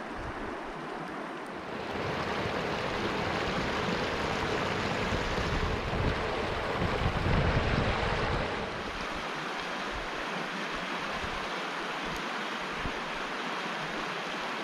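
Shallow river water running in a steady rushing hiss, with wind rumbling on the microphone, louder from about two seconds in until about eight and a half.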